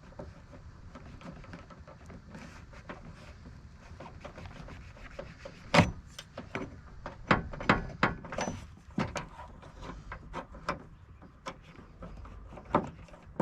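A small hand tool working at the spring clip behind a car's window winder handle to free it: light scraping, then a scatter of sharp irregular clicks and knocks from about six seconds in, the loudest one first.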